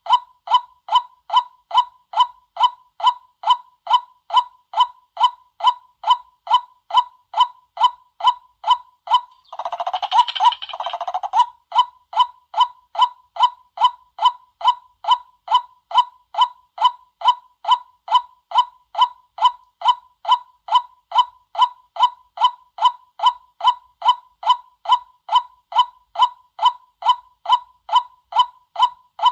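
White-breasted waterhen calling in a steady run of repeated 'kwak' notes, about two and a half a second. About ten seconds in, a brief harsher, denser burst of calling breaks in before the even rhythm resumes. This is a lure call used to draw waterhens in.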